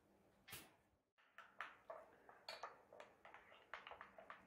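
A utensil beating eggs with chopped onion in a glass bowl: faint, irregular clinks and taps against the glass, several a second from about a second in, after a single tap about half a second in.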